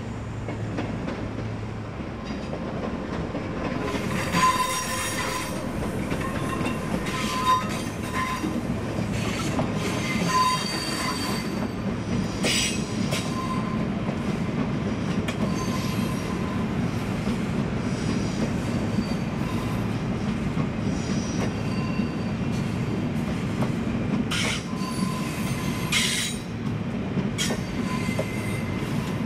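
Double-deck passenger train running slowly over curved track and points, its wheels squealing in repeated bursts above a steady rolling rumble, with some clatter over the rail joints.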